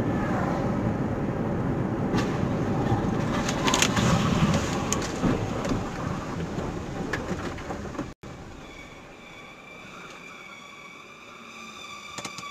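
Car driving at highway speed, its road and engine rumble heard from inside the cabin, with a few sharp clicks. After an abrupt cut about eight seconds in it is quieter, and a steady high-pitched tone sounds for about five seconds, dropping in pitch as it ends.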